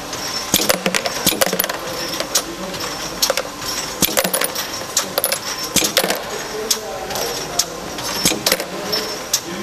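Metal aerosol cans clinking against one another and the guide rails as they run along a packaging-line conveyor. There are frequent, irregular sharp metallic clicks over a steady machine running noise.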